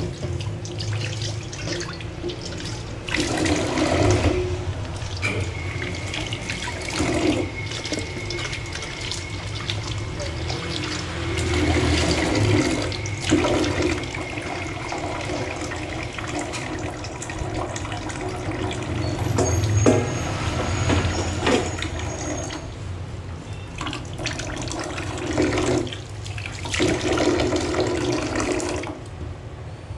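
Tap water running and splashing into a stainless steel kitchen sink as a pot is rinsed under it and swirled by hand. The splashing swells and falls several times.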